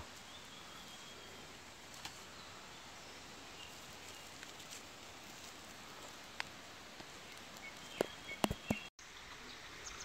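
Faint outdoor ambience: a steady soft hiss with a few faint short chirps. Several sharp clicks come near the end and are the loudest sounds.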